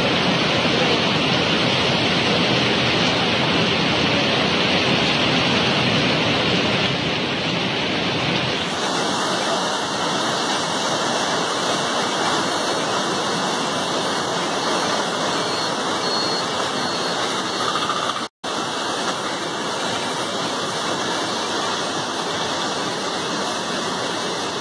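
Steady rushing noise of floodwater in a swollen river. The sound changes character about nine seconds in and cuts out for an instant near eighteen seconds.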